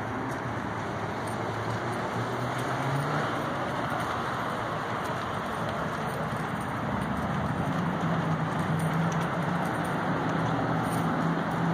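OneWheel self-balancing electric board riding: the low hum of its hub motor over the steady rush of its single fat tyre rolling. The hum sits higher and grows a little louder in the second half.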